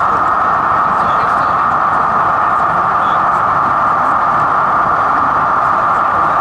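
Steady engine drone from an OO gauge model locomotive's sound decoder, played through its small speaker; it stays even and loud throughout.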